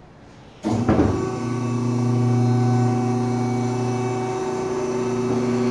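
A Maxon truck lift gate's electric hydraulic pump motor starts abruptly less than a second in and runs with a steady, even hum.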